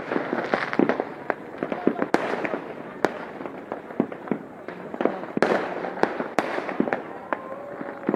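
Fireworks going off: many sharp bangs at irregular intervals, some loud and close, over a constant haze of more distant ones.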